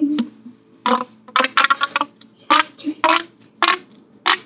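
Plastic pop-tube fidget toy being stretched and bent, giving a string of short crackling pops about every half second.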